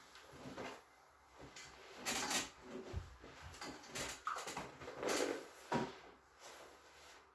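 Clothing rustling, with a few soft knocks and a brief squeak, as a person turns over to lie face down on a chiropractic treatment table.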